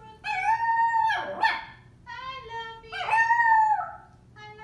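A small white spitz-type dog giving two drawn-out, talking howls of about a second each, the first ending in a quick swoop in pitch. A person's soft voice prompts it briefly before each howl.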